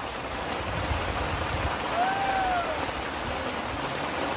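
Steady hiss of rain falling, with some low rumble like wind on the microphone. About two seconds in there is one short voiced call.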